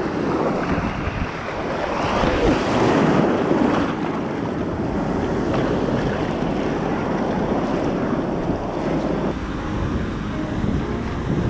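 Ocean surf washing and breaking around the wader, with wind buffeting the microphone; the wash is loudest about two to four seconds in.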